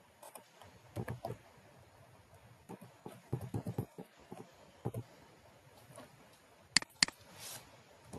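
Computer keyboard typing in short, irregular bursts of key clicks. Two sharp clicks come close together about seven seconds in and are the loudest sounds, followed by a brief soft hiss.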